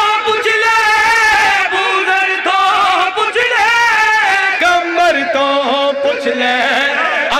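A man singing a devotional qasida in long, drawn-out notes that waver and bend in pitch.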